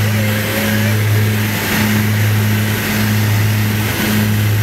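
Twin-turboprop aircraft's engines and propellers droning steadily, heard from inside the cockpit, a deep hum with a slow throb over a constant rushing hiss.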